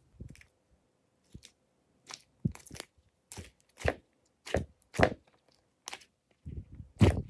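Glitter slime squishing with short sticky pops and clicks as hands press a soft yellow lump down into it: about a dozen irregular pops, the loudest near the end.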